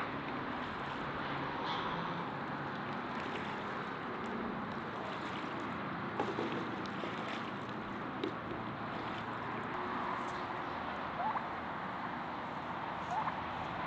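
Farmyard ambience with poultry: a steady outdoor hiss with a few short calls and brief sounds from geese, ducks and a turkey, scattered through it.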